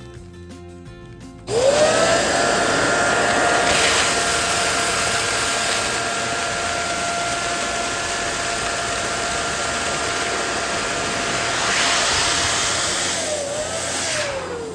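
Electric balloon inflator pump switched on about a second and a half in, its motor quickly spinning up to a steady whine with a loud rush of air as it fills a balloon. Near the end it is switched off and the whine falls in pitch as the motor winds down.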